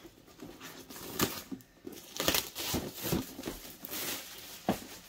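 Plastic wrapping being torn off a cardboard box and crumpled up, in irregular crinkles and crackles.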